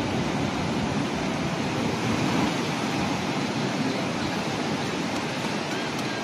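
Steady rushing noise of sea surf on a beach.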